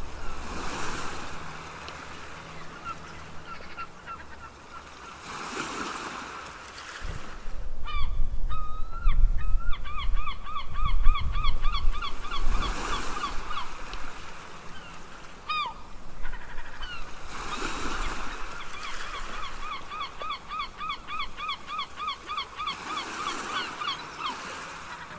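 Gulls calling in long runs of rapid, repeated yelping notes, several a second, over ocean waves that swell and wash in about every five to six seconds. A low rumble sits under the middle stretch.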